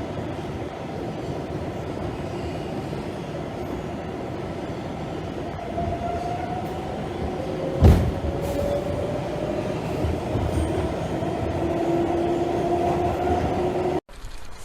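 Steady low rumble of a moving vehicle, with a faint whine slowly rising in pitch in the second half and a single sharp knock about eight seconds in.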